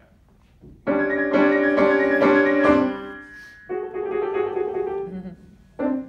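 Grand piano played: a loud chord is struck about five times in quick succession, then comes a softer held chord and a short chord near the end.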